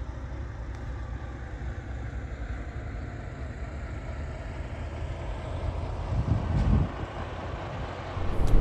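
Truck running down the road: a steady low rumble of engine and road noise, swelling briefly about six seconds in.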